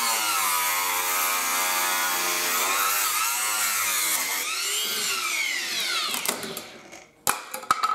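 Angle grinder cutting into a fibreglass moulding, its motor pitch dipping and recovering as the disc bites. About five seconds in it is switched off and winds down, and a few knocks follow near the end.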